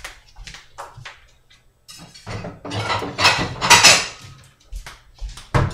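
Plates clattering and clinking as one is taken out of a kitchen cabinet, with a few light clicks first and the loudest clatter about three to four seconds in. A single knock near the end.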